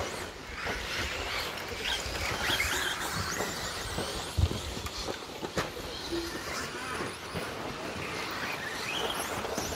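Electric 2wd stadium trucks (radio-controlled, 1/10 scale) racing on a dirt track, their motors whining up and down in pitch as they accelerate and slow. A couple of sharp knocks midway.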